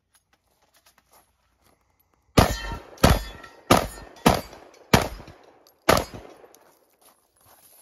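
Beretta 1301 semi-automatic 12-gauge shotgun firing six quick shots, about two shots a second with a slightly longer pause before the last, each shot trailing off in a short ringing decay.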